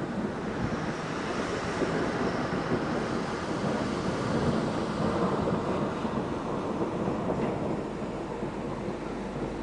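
Thunderstorm wind rushing over the microphone, growing louder for a few seconds and easing off near the end.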